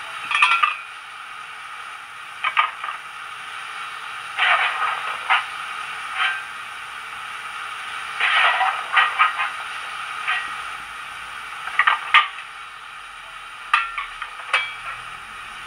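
Steam sound from a Wheeltappers DCC decoder in a model GWR pannier tank locomotive, standing still, played through small sugarcube speakers. A steady hiss of steam runs throughout, broken by irregular clusters of short metallic clanks and scrapes every couple of seconds.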